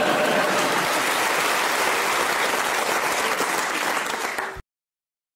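Audience applauding at the end of a comedy sketch, cut off abruptly about four and a half seconds in, followed by dead silence.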